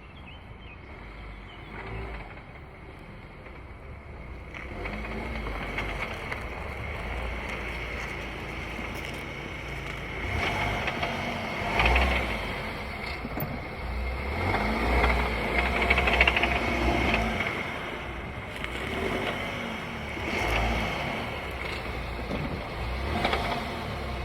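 VW Tiguan drivetrain rattling in several bursts over a low rumble. It is a clatter tied to load changes, which the owner suspects of the gearbox or the dual-mass flywheel.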